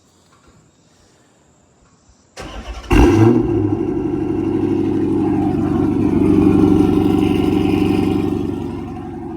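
Car engine cold start: the starter cranks briefly about two seconds in, the engine catches with a rev, then runs at a steady fast idle that eases down near the end.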